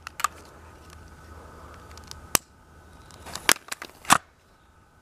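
Break-barrel pellet gun being readied to fire a firecracker charge: a few sharp metallic clicks as the firecracker fuse is lit and the barrel is snapped closed, the loudest two near the end, over a faint steady hiss.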